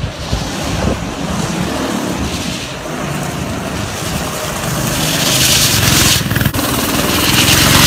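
Small engine of a Honda-powered drift trike running and revving as the trike drifts closer, its pitch rising toward the end. A loud hiss of the rear wheels sliding on concrete swells about five seconds in and again near the end.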